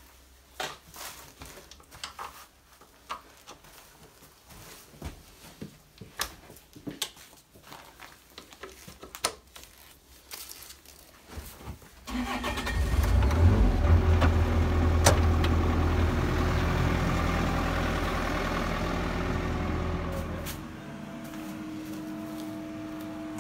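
Scattered clicks and knocks of hands and tools working on the machine. About halfway through, a hydraulic pipe-bursting puller starts suddenly with a loud, steady low rumble, then drops to a quieter steady hum with a couple of steady tones near the end.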